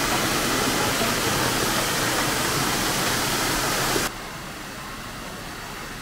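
Stream water pouring from a small waterfall and splashing loudly onto rocks and a bare foot held under it. About four seconds in it cuts to a quieter, steady rush of the stream spilling over low stone steps.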